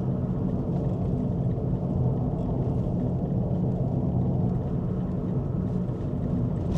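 Steady low rumble of a moving car heard from inside the cabin: tyre and road noise with an even engine drone, no sudden knocks.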